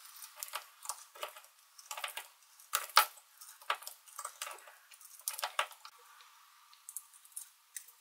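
Steel corkscrew of a Victorinox Swiss Army knife being twisted into wood: a run of short, irregular crackles and clicks as it bites into the grain, the loudest about three seconds in.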